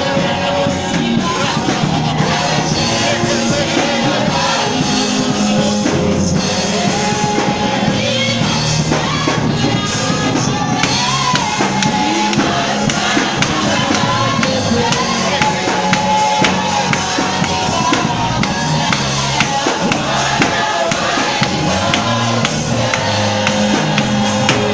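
Gospel music: a choir of voices singing over a steady beat.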